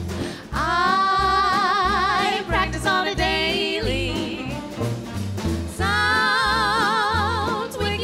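Live swing-era dance band playing a Hawaiian-style instrumental. A lead melody is held in long notes with wide vibrato and slides up between notes, over an even bass beat.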